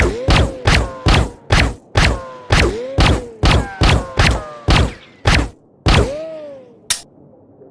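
Colt Accurized Rifle firing a string of about fourteen rapid single shots, roughly two a second and slowing slightly, each with a short ringing tail. The shots stop about six seconds in, and a short click follows about a second later.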